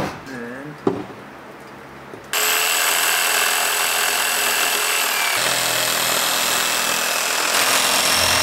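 A single knock just under a second in, then a jigsaw starts suddenly about two seconds in and runs steadily, its blade cutting through a thick clamped live-edge wood slab.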